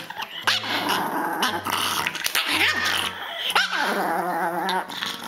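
Small Pomeranian growling and snarling, its pitch wavering up and down and rising into a longer warbling growl about four seconds in, over background music.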